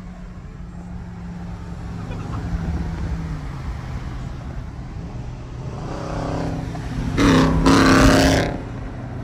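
Car engines running at idle with a steady low rumble, then a louder, higher engine surge lasting just over a second, about seven seconds in.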